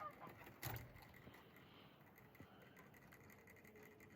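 Rabbits drinking water, heard faintly as soft ticks and scratches, with one sharper knock less than a second in.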